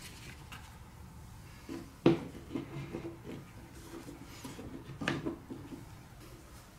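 Hard plastic and wooden marble-run pieces knocking and clicking together as a curved track piece is handled and fitted onto the blocks, with a sharp knock about two seconds in and another about five seconds in.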